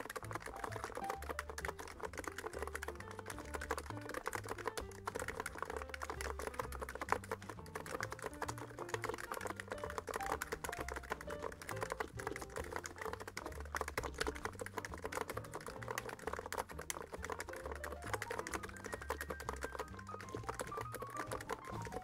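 Continuous fast touch-typing on a NiZ X99 Pro electro-capacitive (EC) keyboard with silenced switches and PBT keycaps: a dense, even stream of soft keystrokes. A quiet melody of stepping notes plays beneath.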